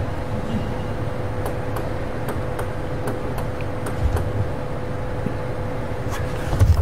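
Indoor table tennis arena ambience, a steady low murmur with a faint hum, with a run of light taps as the server bounces the table tennis ball before serving. Near the end the serve and the first sharp strokes of the rally are heard.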